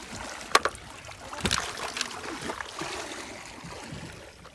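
Water splashing and sloshing as someone wades in shallow muddy water, with a sharp click about half a second in and another knock about a second later; the water noise fades near the end.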